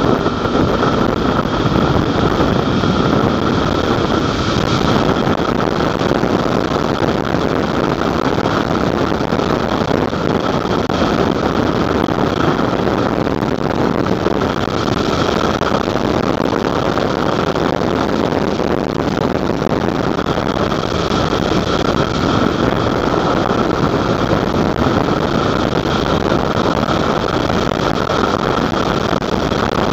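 Onboard sound of a motorcycle on the move: the engine runs steadily under a constant rush of wind on the microphone.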